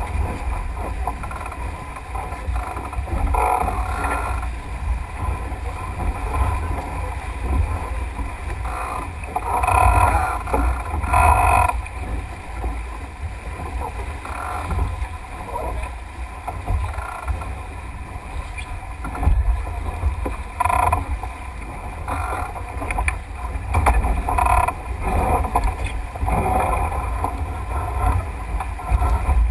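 Water rushing and splashing along a Melges 24 sailboat's hull as it sails fast under spinnaker through chop, with louder surges of spray every few seconds over a steady low wind rumble on the microphone.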